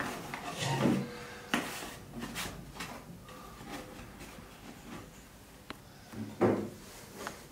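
Hands handling and pressing thin aluminium panels into a model frame: scattered soft taps, clicks and scrapes. A short low vocal sound, about six and a half seconds in, is the loudest moment.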